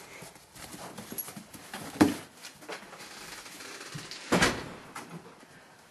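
A dog being let back in through a door: a sharp knock about two seconds in, then a louder, longer noise about four and a half seconds in.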